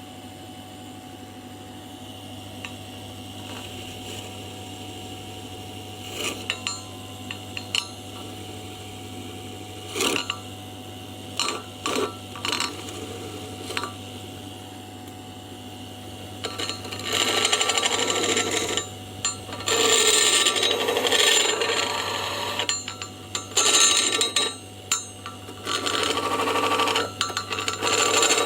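Drill press converted to a lathe running with a steady hum and a few knocks. From about 17 s a tool is pressed against the spinning workpiece in loud cutting and scraping passes with short breaks between them.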